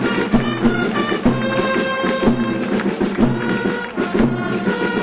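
Band music with a steady percussion beat, about three beats a second, under held instrumental notes.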